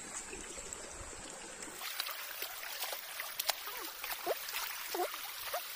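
Shallow rocky stream trickling and gurgling, with short bubbling plops and small clicks. It starts abruptly about two seconds in; before that there is only a faint steady hiss.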